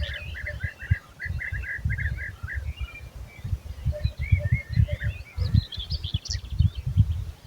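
Songbirds singing: a rapid run of repeated chirps for the first two and a half seconds, then scattered calls and a higher, faster trill near the end. Wind buffets the microphone underneath in irregular low rumbles.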